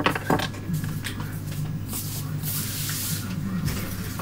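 A few sharp clicks at the start, then a spray-like hiss lasting about a second in the middle, over a steady low hum.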